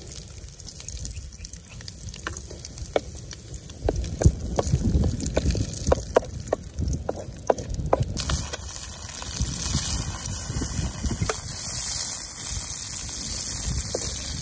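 Wooden spatula knocking and scraping against a steel wok while garlic and red chillies fry in oil; the frying turns into a loud, steady sizzle about halfway through.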